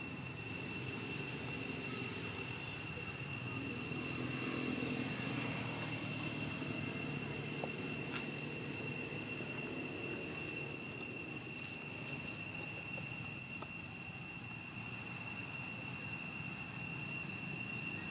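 Steady outdoor background noise: a low rumble from distant engines, slightly louder a few seconds in, under a constant high-pitched whine.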